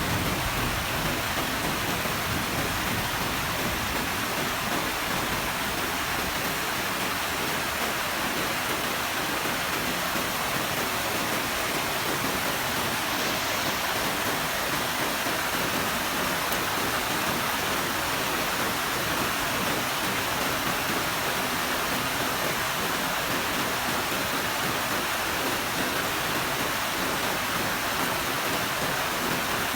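Heavy rain falling steadily, an even, unbroken hiss with no thunderclap standing out.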